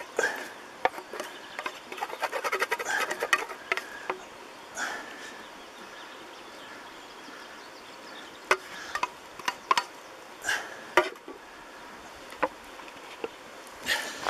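Wooden spoon scraping and knocking against a frying pan as scrambled eggs with green onion are served out onto a wooden plate: a quick run of scrapes and clicks over the first few seconds, then a pause and scattered single knocks.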